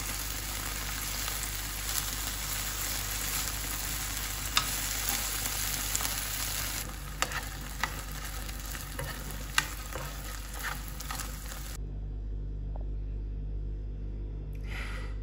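Chicken pieces sizzling in oil and sauce in a nonstick frying pan, with a few sharp clicks as a metal fork turns them against the pan. The sizzle cuts off suddenly about twelve seconds in, leaving only a low hum.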